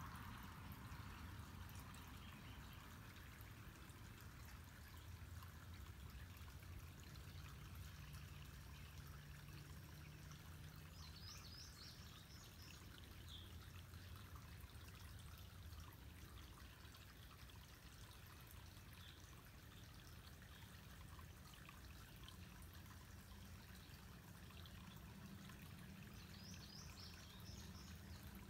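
Faint trickle of running water, as from a garden pond's waterfall or fountain, with a small bird chirping a few quick high notes twice, about eleven seconds in and again near the end.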